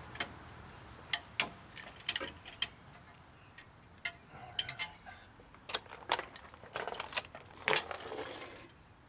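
Irregular metallic clicks and clinks of a ratchet wrench and 13 mm 12-point socket working on the hub-assembly bolts, a denser cluster near the end.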